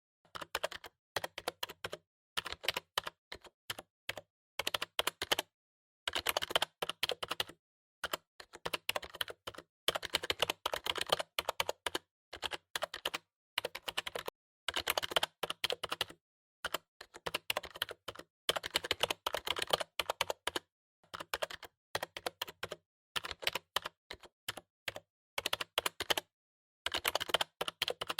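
Computer keyboard being typed on: rapid clicking keystrokes in bursts of a second or two, separated by short pauses.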